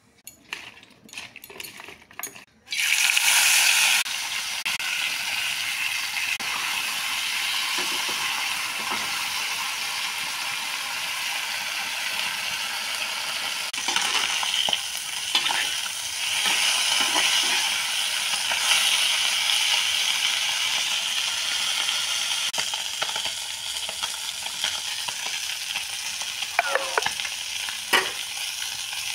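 Small whole fish shallow-frying in hot oil in a pan. A few short clicks come first, then a sudden loud burst of sizzling about three seconds in as the fish go into the oil. Steady sizzling follows, with occasional scrapes of stirring.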